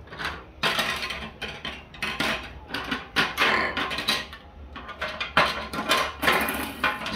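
Hard plastic parts and blade inserts of a kitchen vegetable chopper set being handled, clattering and clicking against each other in an irregular run of knocks.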